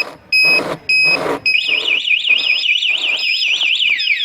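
TEXNO Super Two Way motorcycle alarm siren sounding through its tone cycle: a run of short high beeps, then a fast up-and-down warble about four times a second, then falling whoops near the end. It is the alarm's first-stage warning, set off by touching the armed motorcycle. Two louder knocks come about half a second and a second in.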